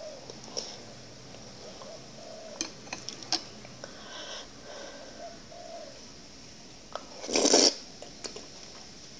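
Ambuyat, a sticky sago-starch paste, being eaten with chopsticks: a few light clicks as it is lifted and dipped in soup, then one loud slurp about seven seconds in as the strand is sucked from the chopsticks into the mouth.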